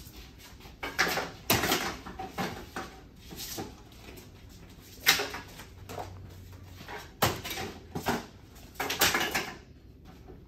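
Red chart folders being waved, flapped and shuffled in people's hands: irregular rustles and flat slaps, with the sharpest slaps about five and seven seconds in.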